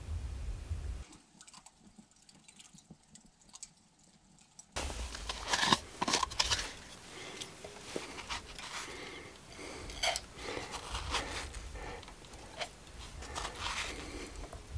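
A spoon scraping and clicking in a plastic tub of powdered drink mix as it is scooped out, in many short irregular ticks and scrapes. Before that, a low wind rumble for about a second, then a few seconds of near silence.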